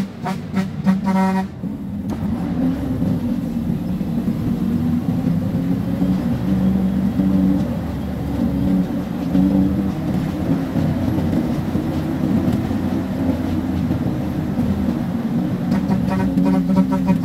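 Truck engine and road noise heard from inside the cab while driving, a steady low drone. A pitched, pulsing tone sounds over it for the first second or so and again near the end.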